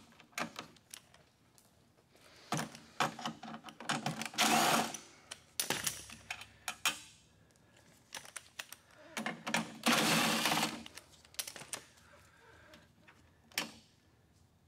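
Cordless drill-driver with a 10 mm socket, running in short bursts as it spins nuts off the hybrid battery's control board, with clicks and clatter of small parts between the runs.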